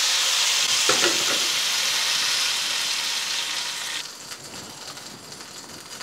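Hot ghee tempering of mustard seeds, cumin, dried red chillies and curry leaves hitting sambar with a loud sizzling hiss, which fades and dies down after about four seconds.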